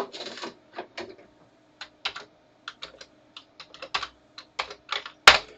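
Typing on a Commodore 64 keyboard: a run of irregular key presses, with one louder press near the end.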